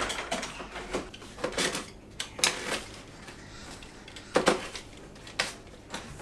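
Irregular knocks and clatters of things being handled and set down on a floor, about half a dozen sharp taps spread over the few seconds.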